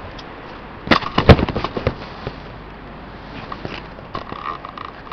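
A camera toppling over: a loud clatter of several sharp knocks about a second in, then scattered lighter knocks as it is handled.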